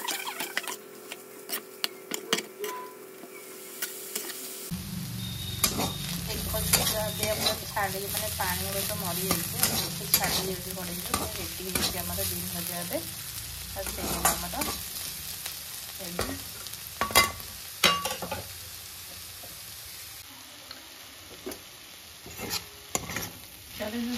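Food sizzling as it fries in a pan, stirred with a spoon that taps and scrapes against the pan many times. The frying hiss comes in more strongly about five seconds in.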